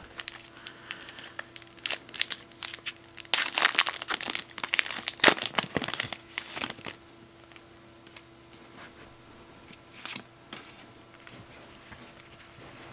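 The foil wrapper of a Pokémon trading card booster pack crinkling as it is torn open. The crackling is loudest from about three to seven seconds in, with fainter rustles before and after.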